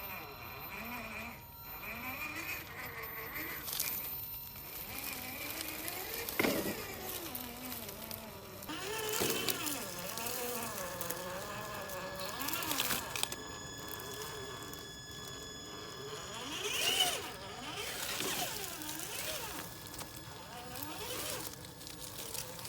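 Electric motor and gear drivetrain of a Traxxas TRX-4 G500 1:10 RC crawler whining as it drives, the pitch rising and falling with the throttle, with occasional knocks.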